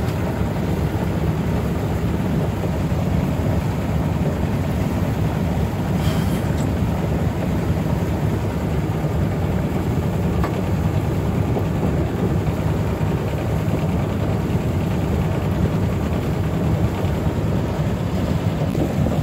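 A sailboat's auxiliary engine running steadily while the boat is under way, a continuous low drone heard from the cockpit.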